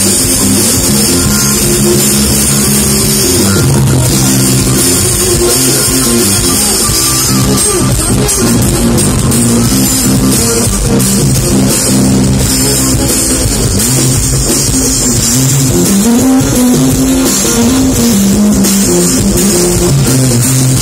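Live band music amplified through stage speakers, loud and continuous, with electric bass, a drum kit, electric guitar and hand drums.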